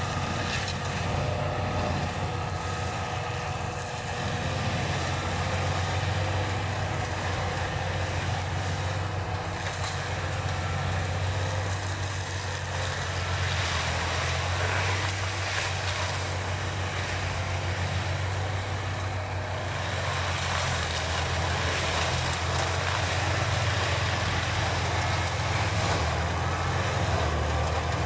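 John Deere 6190R tractor's six-cylinder diesel running steadily under load while its rear FAE hammer flail mulcher shreds brush and woody debris on the ground. A constant low engine hum sits under a dense rushing grind from the rotor, with scattered louder crashes of material being hit around the middle.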